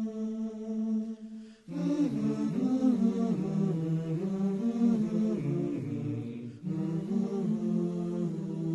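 Background music: a low voice chanting a slow, wordless melody, holding long notes at first and then moving from note to note, with two brief breaks, about 1.7 and 6.6 seconds in.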